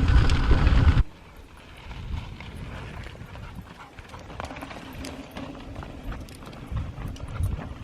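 Loud wind and riding noise that cuts off suddenly about a second in, then quieter footfalls and small taps on a dirt and rock trail.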